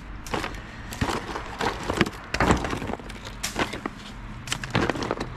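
Irregular knocks and clatter of junk being shifted and picked through in a dumpster, about a dozen sharp hits spread unevenly over a few seconds.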